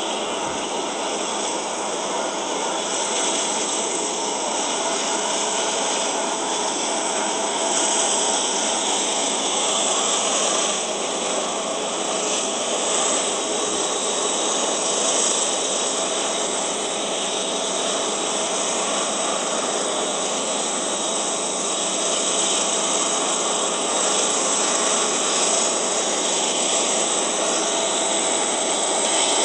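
Diesel locomotives of an approaching freight train, a steady drone that grows a little louder toward the end.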